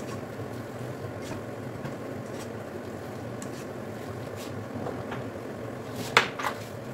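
Spatula scraping and clicking against a frying pan as spaghetti is tossed, over a steady hiss; one sharp knock about six seconds in, followed by a lighter one.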